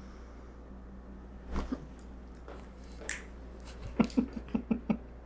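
Chiropractic neck adjustment: the neck joints crack in a quick run of about eight sharp pops within a second near the end, after a couple of single softer clicks earlier.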